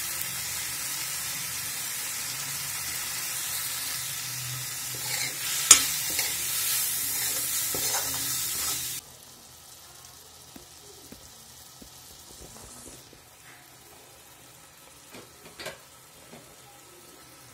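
Onion-tomato masala with freshly added ground spices sizzling in a dark iron kadhai while a spatula stirs and scrapes it, with one sharp knock of the spatula on the pan. About halfway the sizzle cuts off suddenly, leaving a faint hiss and a few soft clicks.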